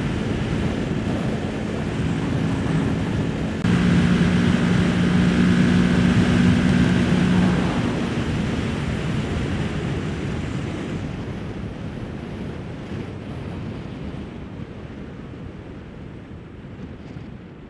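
Heavy wind noise on the microphone at highway speed, with the steady note of a Kawasaki Ninja 650's parallel-twin engine under it. About four seconds in it gets louder. After about eight seconds the engine note fades out and the wind noise falls away steadily as the bike slows.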